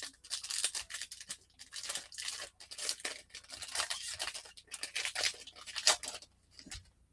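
Foil wrapper of a Donruss baseball card pack being torn open and crinkled by hand: a run of irregular crackling rips and rustles that stops about six seconds in.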